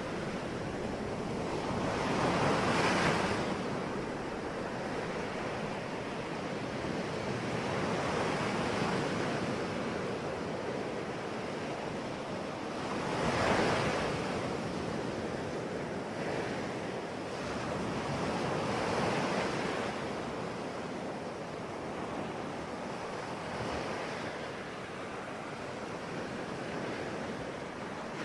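Ocean waves breaking and washing on the shore, a steady surf wash that swells into louder breakers every several seconds, the strongest about three seconds in and halfway through.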